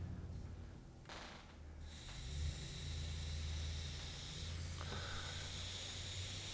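A heated aluminum fingerboard iron set down on a wet rag on a guitar fretboard, the water hissing into steam; a short rustle of the rag about a second in, then a steady hiss from about two seconds in. The steam and heat are softening old hide glue so that the fingerboard can be lifted off the neck.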